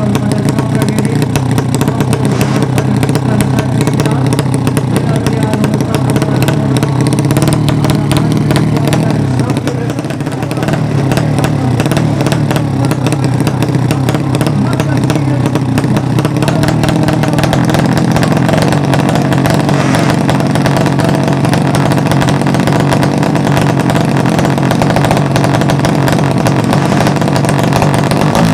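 Motorcycle engines of the 200cc racing class running loudly and steadily, with a brief dip in level about ten seconds in.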